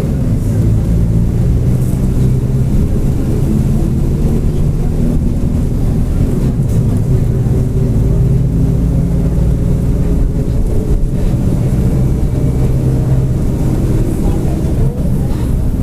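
Mercedes-Benz OF-1722M bus running at a steady pace, its four-cylinder diesel engine droning along with a growl from the rear differential.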